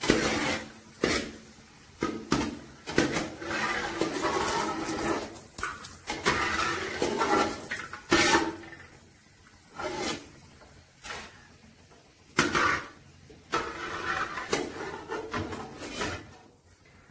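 A perforated metal skimmer scraping and knocking irregularly against an aluminium pan as cashew nuts are stirred and lifted out of hot fat. A frying sizzle runs under the knocks.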